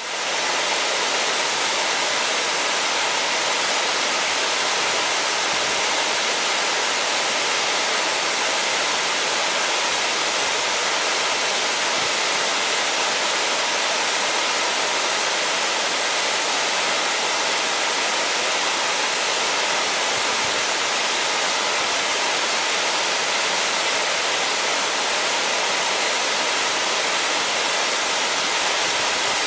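Waterfall splashing down into a pool: a steady, even rush of falling water.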